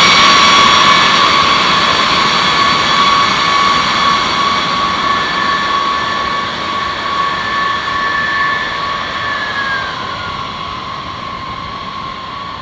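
B-52H Stratofortress turbofan engines whining as the bomber taxis away, the sound fading steadily. One of the whine's tones drops in pitch about nine seconds in.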